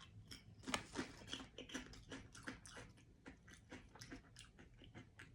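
Someone chewing crunchy snack chips: a fast, irregular run of faint crisp crackles.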